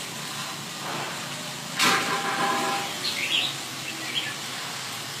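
Red-whiskered bulbul giving a few short chirps over a steady hiss, with a brief loud rush of noise about two seconds in.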